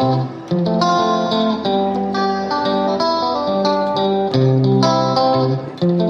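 Background music: a plucked guitar playing a gentle melody over chords, each note struck and ringing.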